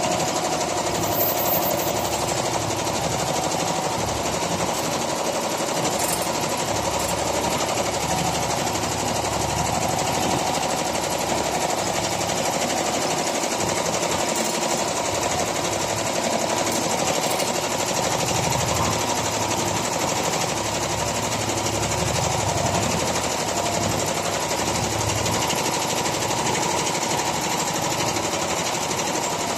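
Industrial quilting and embroidery machine running, its needles stitching in a fast, steady, unbroken rhythm.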